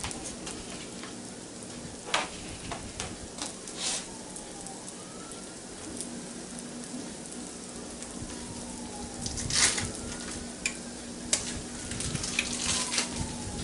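An egg frying in a Copper Chef non-stick square pan: a steady sizzle broken by irregular sharp pops and crackles. The pops are loudest about two seconds in and again around ten seconds.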